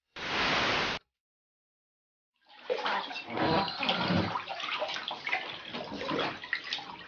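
Water splashing and running in a bath where a cat is being washed, starting about two and a half seconds in, after a brief burst of rushing noise near the start.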